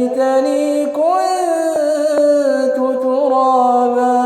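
A male Quran reciter's melodic, drawn-out recitation, holding long vowels mostly on one pitch with a brief rise and fall about a second in: the closing words of the surah's final verse.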